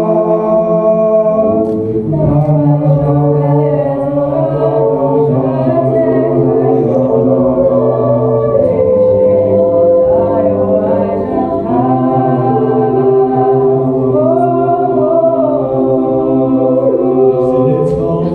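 Mixed-voice a cappella group singing in close harmony through microphones, with voices held as sustained chords and no instruments.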